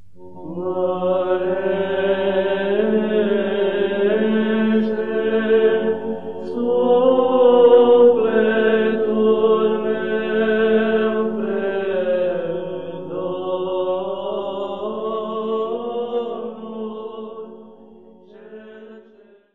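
Orthodox church chant: a sung melody moving over a steady held drone note, fading out near the end.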